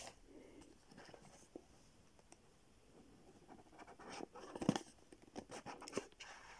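Matte paperboard phone box being opened by hand: a cardboard lid sliding off its base with soft scraping and rubbing and a few light taps, faint at first, then busier and loudest about two-thirds of the way through.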